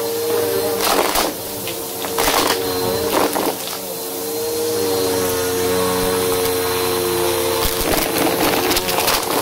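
Upright vacuum cleaner running with a steady motor hum while it sucks up loose debris from carpet. Bursts of crunching and rattling come about a second in, around two and three seconds, and again near the end.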